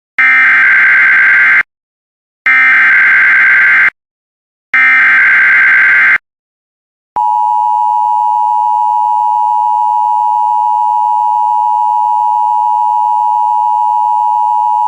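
Emergency Alert System header opening a severe thunderstorm warning. Three buzzing SAME digital data bursts, each about a second and a half long with short gaps, are followed after a second's pause by the steady two-tone EAS attention signal, which starts about seven seconds in.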